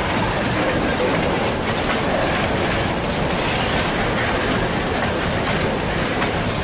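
Empty freight wagons rolling past close by, their steel wheels on the rails making a steady rumble with clickety-clack as the bogies cross a turnout.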